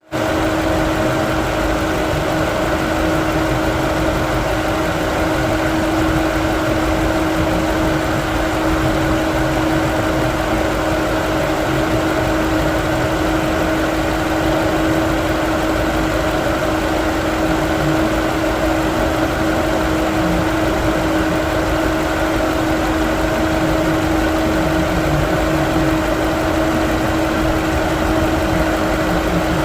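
Car engine idling with a misfire: a steady running sound with an uneven low rumble and a constant whine over it.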